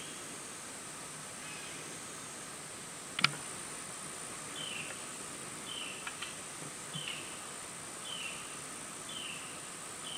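Steady high-pitched drone of evening insects, with a short falling chirp repeating about once a second from about halfway through. A single sharp click sounds about three seconds in.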